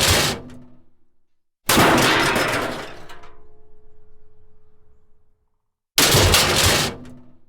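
Metal crashes, one after another: the tail of one crash fades out, then a second loud crash comes about 1.7 s in, its clattering metal ringing on with several tones for a few seconds. A third crash comes about 6 s in and is fading near the end.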